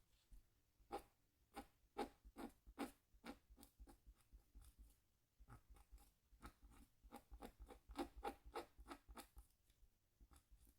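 Faint short scraping strokes of a scratch tool cutting into the black coating of a scratchboard, about two or three strokes a second, with a brief lull near the middle.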